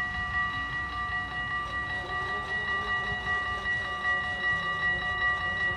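Dutch level-crossing bell ringing in a fast, even run of strikes while the barriers begin to rise just after a train has passed, over a low rumble.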